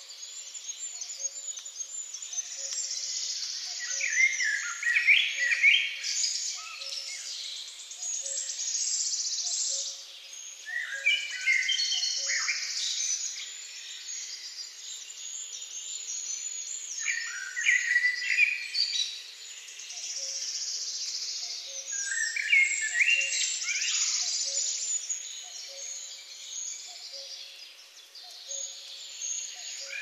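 Eurasian blackbird singing: a phrase of clear whistled notes about every five or six seconds, over a steady high twittering of other small birds.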